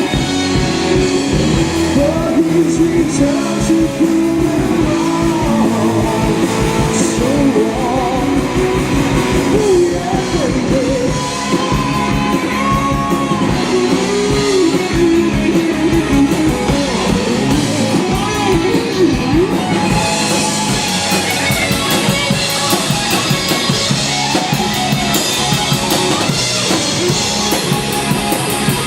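Live rock band playing: electric guitar and drum kit, with a singing voice.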